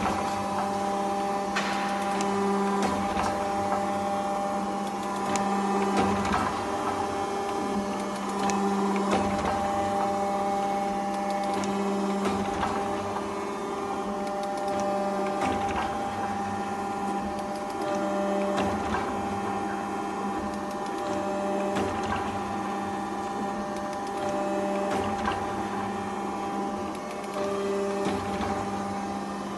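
7M430 hydraulic slotting machine running: a steady hydraulic pump hum, with a tone that comes and goes every two to three seconds as the ram strokes, and scattered sharp knocks.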